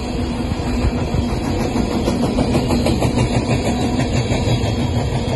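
Coal train cars rolling past: a steady, loud rumble of steel wheels on rail with rapid rattling and clanking from the cars.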